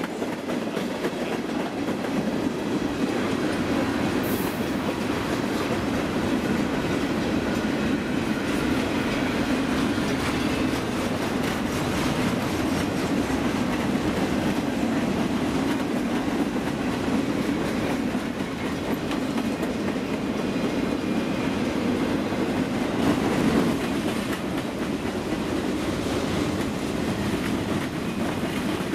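Freight cars of a long train rolling past: a steady rumble with the clickety-clack of wheels over rail joints.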